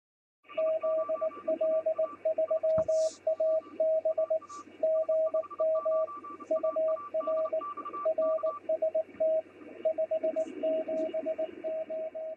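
Morse code (CW) tone keyed in short and long elements, heard through a radio receiver over a steady hiss of band noise and a low hum.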